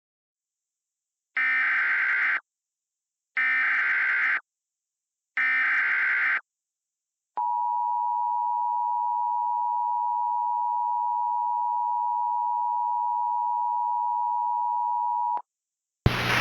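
Emergency Alert System tornado warning tones. Three buzzy, roughly one-second bursts of SAME digital header data about a second apart, then the steady EAS attention tone held for about eight seconds, cutting off sharply. A hiss starts just before the end.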